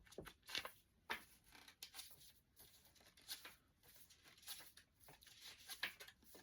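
Faint rustling and crinkling of CDs and their packaging being handled, in short scattered bursts.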